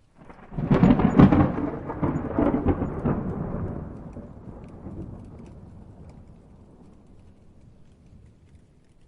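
A thunderclap: a sudden crackling crash about half a second in, then a rolling rumble that fades away over several seconds, with rain falling.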